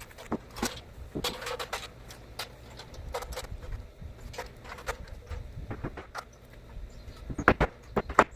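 Irregular knocks and taps of work on metal roofing panels, some with a brief metallic ring, with a louder cluster of knocks near the end.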